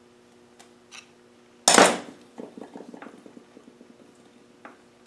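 A sharp metallic clack, then a quick run of light clicks as the steel gears inside a Land Rover LT230 transfer box are rocked back and forth by hand, the teeth knocking through their backlash on the low range. One more single click comes near the end.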